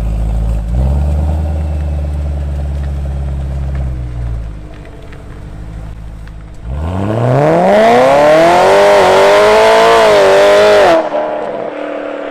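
BMW E92 M3's V8 through a Grail rear silencer: a steady low rumble at low revs as the car moves off. About seven seconds in comes hard acceleration, the engine note rising steeply and loudly, which cuts off sharply near the end and leaves a quieter, falling tone.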